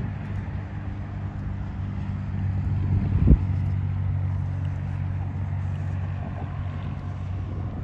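A vehicle engine running with a steady low hum, and a single sharp thump about three seconds in.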